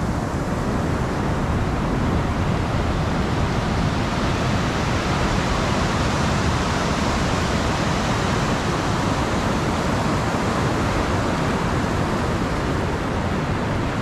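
Ocean surf breaking over a coral reef flat and washing up a sand beach: a steady, even rush of noise.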